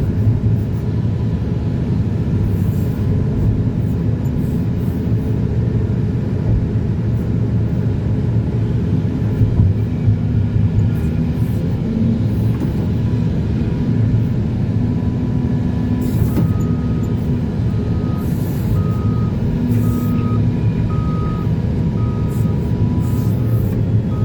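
Heavy diesel machinery running steadily at a mine loading face, and from about two-thirds of the way through a reversing alarm beeping at an even pace, a little more than once a second.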